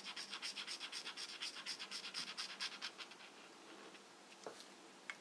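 A colouring pen scribbling on paper in fast back-and-forth strokes, filling in a small area, stopping about three seconds in.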